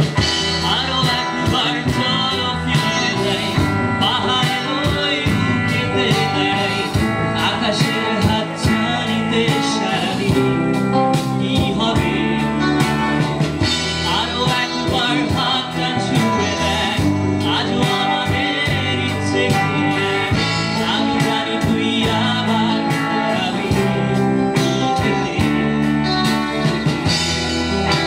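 Live rock band playing a Bengali rock song: a male voice singing into a microphone over electric guitars, bass and a drum kit.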